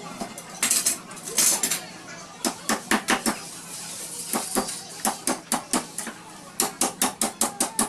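Quick runs of sharp metallic taps, about five to seven a second, with two short scraping rustles in the first two seconds.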